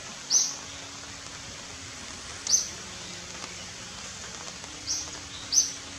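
Short, high-pitched animal chirps, four of them spaced a second or two apart, over a faint steady hum.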